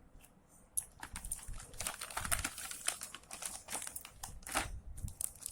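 Packaging of a painting kit being handled and crinkled, with a dense run of small clicks and rustles starting about a second in, as items are taken out of the box.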